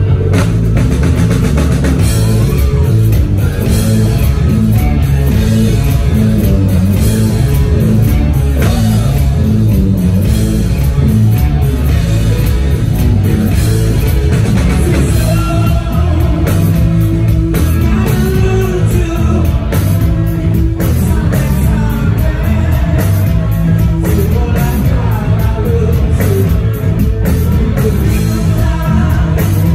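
Rock band playing live: electric guitars, bass and a drum kit keeping a steady beat, with a vocalist singing over them.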